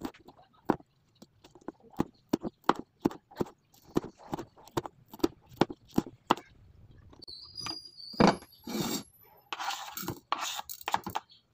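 Kitchen knife chopping chili peppers on a plastic cutting board: sharp knocks about three a second. Near the end, a few louder knocks and the knife scraping the chopped pieces off the board into a ceramic bowl.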